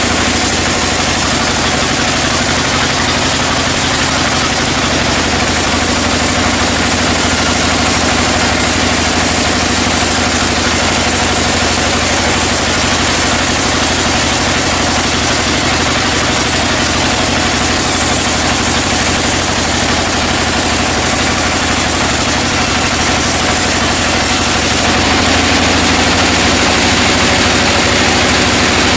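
Sawmill engine running steadily under a constant high hiss, with a shift in tone about 25 seconds in.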